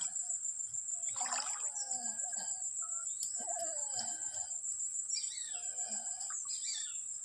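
Insects shrilling in a steady high-pitched buzz, with birds chirping over it in short rising and falling calls.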